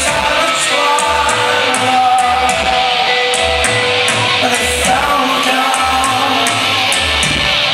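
Live rock band playing, with a sung vocal melody over guitar, a steady kick drum beat and cymbal hits.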